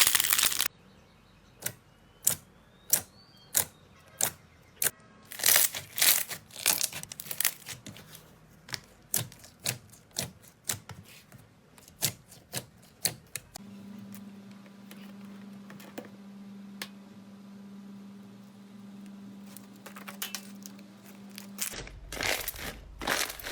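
Slime being pressed and poked, giving a run of sharp popping clicks at an uneven pace, then a steady low hum with only a few clicks, and crunching again near the end.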